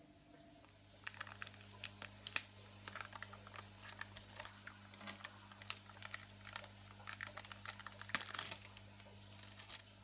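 Thin plastic plant cup crinkling and crackling in the hands as it is squeezed and worked to push out a clump of Eleocharis sp. mini, a dense run of irregular sharp clicks starting about a second in. A low steady hum sits underneath.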